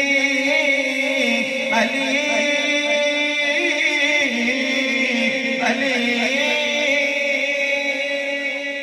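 A man reciting a naat, an Urdu devotional song, solo into a hand microphone, holding long notes and bending them in wavering ornaments.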